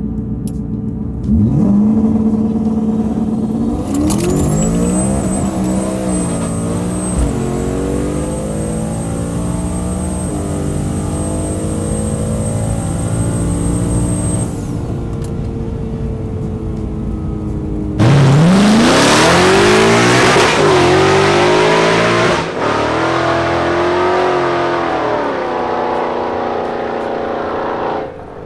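2016 Ford Mustang GT's 5.0 V8 launching hard and accelerating through the gears on a quarter-mile drag pass, heard from inside the car: the engine pitch climbs and drops back at each upshift, with a thin high whine through the middle of the run. About 18 seconds in, a second, louder stretch of hard acceleration starts suddenly and climbs through the gears again.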